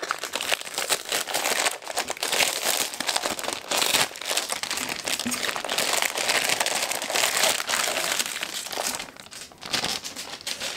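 Clear plastic packaging bag crinkling and rustling continuously as a cross-stitch kit is pulled out of it, easing off near the end.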